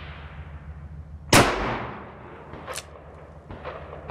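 A single loud shot from a Smith & Wesson Model 29 .44 Magnum revolver, firing a handload of 8 grains of Bullseye, comes about a second and a half in and rings off in a long echoing decay. A fainter sharp crack follows a little over a second later.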